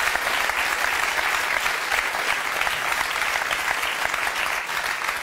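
Studio audience applauding, a dense steady clapping from a full hall.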